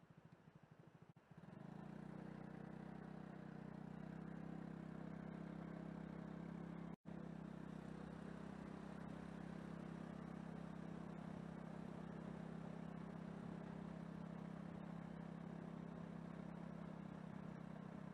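Steady drone of a car on the move, engine and road noise, starting about a second in, with a brief cut-out near the middle.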